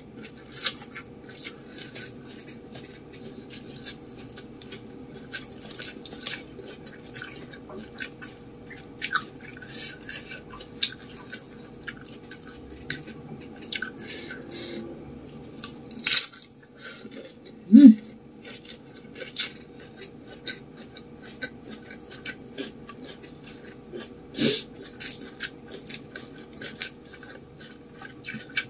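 Close-miked chewing of fried rice vermicelli wrapped in raw lettuce, with many short wet mouth clicks and lip smacks throughout.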